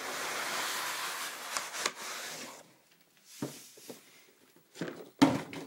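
Rustling and rubbing of a long cardboard mailing tube being handled for about two and a half seconds, followed by a few scattered knocks, the sharpest about five seconds in.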